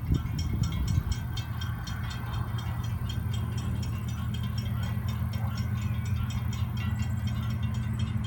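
Steady low hum of the diesel locomotives of an approaching Florida East Coast freight train, heard from a distance. A fast, even, high-pitched ticking runs over it, and there are a few gusty low thumps in the first second.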